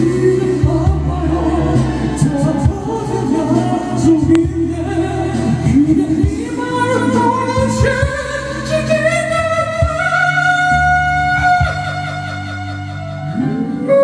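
A song with a voice singing over a backing track with a steady bass. About halfway through the voice climbs into long held notes, eases off briefly, then starts a new phrase just before the end.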